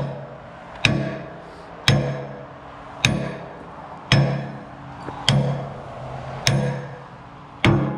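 Sledgehammer striking a stuck steel linkage pin on an excavator arm, about one blow a second, seven in all. Each blow clangs and rings before it dies away. The pin is tight and hard to drive out.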